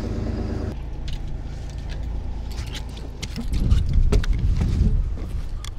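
A boat's engine hums steadily, then cuts to an uneven low rumble that swells loudest around four seconds in, with scattered sharp clicks and knocks.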